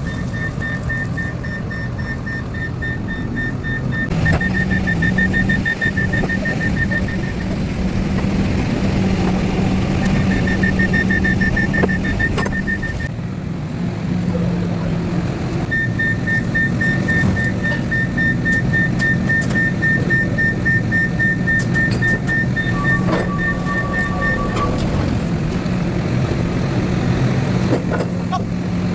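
An engine running steadily with a low hum, joined on and off by a thin high-pitched tone that lasts a few seconds at a time.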